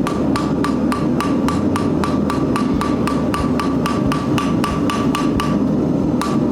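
Hammer peening over a steel rivet on a forged hinge: rapid, even blows, about four a second, each with a short metallic ring, stopping about five and a half seconds in with one last blow after. The rivet has little heat in it and is starting to mushroom. A steady low noise runs underneath.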